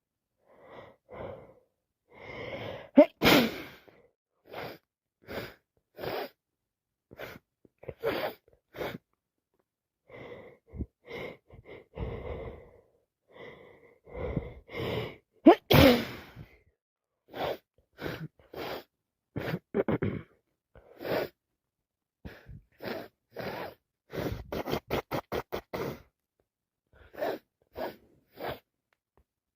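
A woman sneezing again and again from a head cold, the loudest sneezes about three seconds in and again about sixteen seconds in, with gasping in-breaths between them. A little after twenty-four seconds comes a quick run of about a dozen short breaths.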